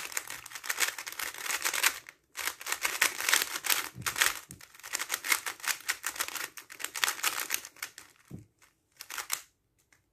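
A GAN 3x3 speedcube being solved fast: a rapid, continuous clatter of layer turns with a short pause about two seconds in. The turns thin out to a few last ones and stop shortly before the end.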